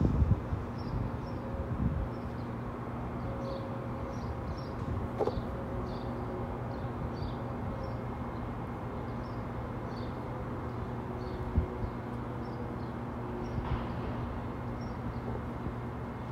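Small birds chirping in short high notes, several times a second at irregular spacing, over a steady low hum.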